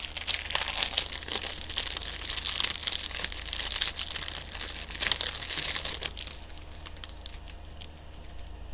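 Crinkly packaging of a diamond painting kit being handled and opened, a dense crinkling and crackling that dies down about six seconds in.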